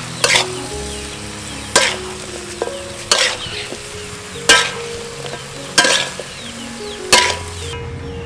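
Sweet peppers stir-frying in a wok: a steady sizzle, with a metal spatula scraping and tossing six times at an even pace, about every second and a half. The sizzle drops away near the end.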